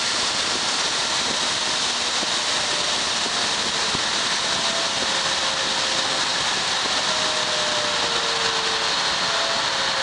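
Fan of a 1988 Pelonis Safe-T-Furnace 1500 W space heater running: a steady rush of blown air with a faint whine that slowly drops in pitch through the second half as the fan is turned down on its variable speed control.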